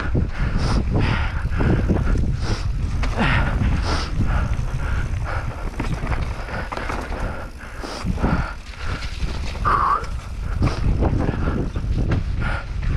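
Mountain bike descending a rough dirt trail at speed: wind buffeting the microphone, tyres rumbling over dirt and rock, and the bike rattling and knocking over bumps, with a brief high squeak about ten seconds in.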